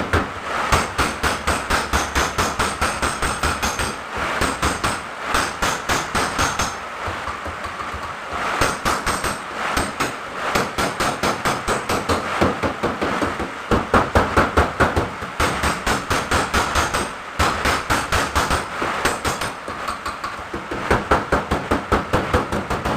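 A hammer beating the steel body panel of a Mitsubishi L300, about four to five quick blows a second in runs of several seconds with brief pauses between them. The blows are straightening collision damage around the lower door pillar.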